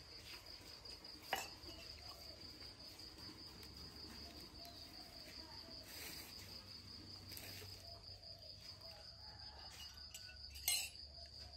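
An insect, cricket-like, trilling steadily in a high, fast-pulsing tone. Two sharp clicks stand out, one about a second in and one near the end.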